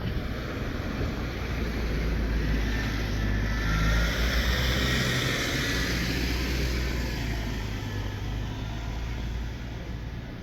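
A motor vehicle going past: a low engine hum with broad road noise that swells to a peak about four to six seconds in and then slowly fades.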